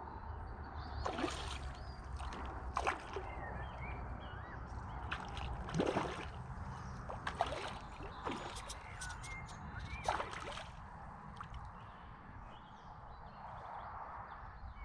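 Lake water splashing and sloshing in a string of short bursts, the loudest about six seconds in, over a low steady rumble, with small birds chirping.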